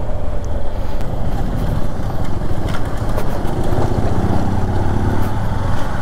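Motorcycle engine running under way, with heavy wind blast rumbling over the microphone. The engine note comes through more clearly about halfway through.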